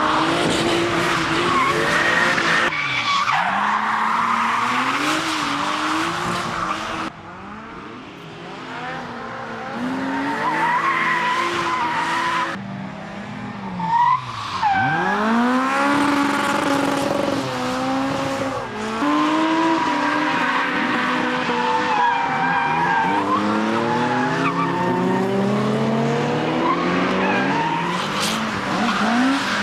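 Race-prepared retro cars' engines revving hard, the pitch climbing and dropping again and again through gear changes and throttle blips, over the hiss and squeal of tyres sliding sideways in drifts. The sound dips for a few seconds about a quarter of the way through, and there is a short loud burst about halfway.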